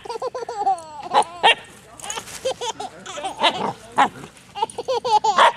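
A cavachon puppy's short, playful barks and yips, mixed with a baby's giggles and squeals, in quick succession.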